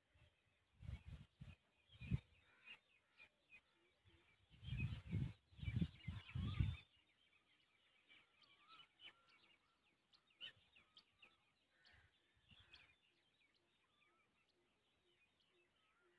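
Distant birds chirping and calling at a low level. From about a second in until about seven seconds in, a cluster of low rumbling thumps is louder than the birds.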